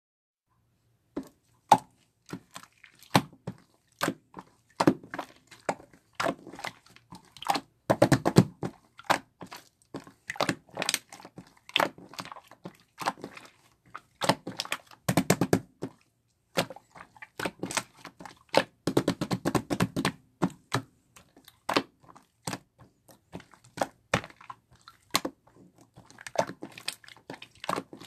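Close-up handling noise: irregular sharp taps and clicks, with longer rustling stretches about eight, fifteen and nineteen seconds in.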